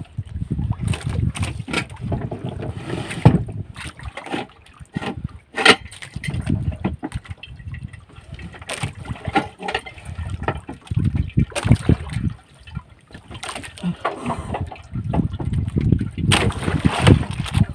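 Water sloshing and splashing around a small wooden fishing boat, with irregular knocks on the hull and low rumbling gusts.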